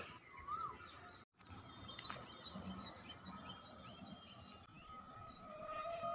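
Faint open-air ambience with a small bird giving a quick series of short, high chirps. Quiet music with a held, wavering note fades in near the end.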